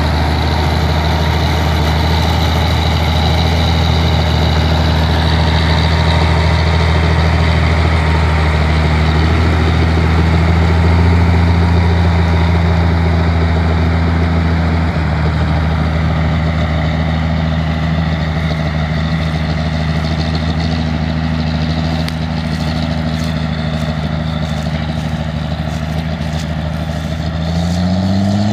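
Diesel farm tractor engines running steadily under load while pulling tillage implements, close to the microphone; the engine note rises in pitch near the end.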